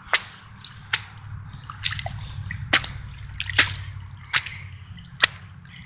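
Footsteps in wet quicksand: seven sharp, wet slaps, a little more than one a second, as sneakers press into and pull out of the waterlogged sand.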